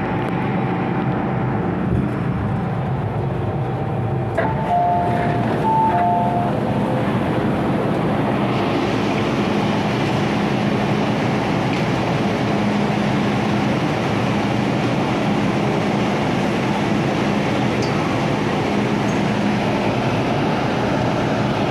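MTR M-Train electric multiple unit slowing to a stop at a station platform, with a steady motor hum. A two-note chime sounds twice about four to six seconds in, then steady train and station noise carries on.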